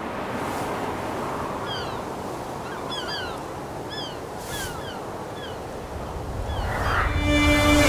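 Soundtrack outdoor ambience: a steady windy rush with short bird chirps every second or so. It swells near the end as music comes in.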